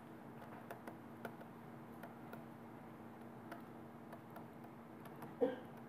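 Faint, irregular ticks of a stylus tapping on a pen tablet as handwriting is added, over a low steady hum.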